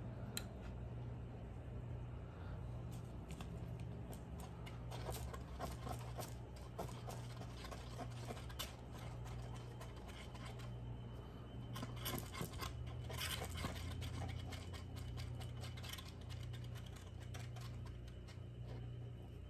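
Faint, irregular scratching and ticking of a thin wire stirring two-part epoxy on a piece of cardboard, over a steady low hum.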